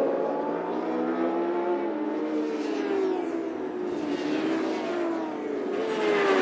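Several endurance-racing superbike engines at high revs, their pitches climbing and dropping through gear changes and throttle as the pack races past. The sound grows louder near the end.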